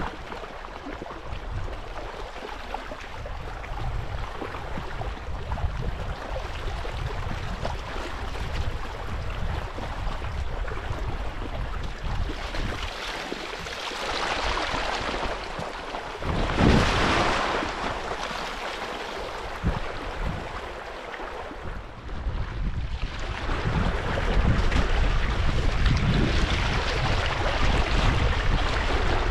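Rushing spring snowmelt runoff: a continuous hiss of running water, with wind rumbling on the microphone. It swells briefly past the middle and grows louder for the last few seconds.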